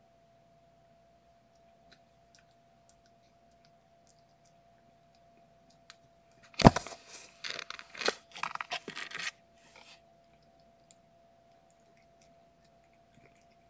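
Kittens scuffling on fabric bedding in a nest box: a sharp thump about halfway through, then about three seconds of scratchy rustling that comes in bursts and stops.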